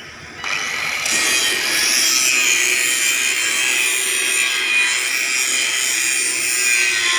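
Handheld angle grinder grinding the steel frame of a panel, a steady high-pitched grinding noise that starts about half a second in.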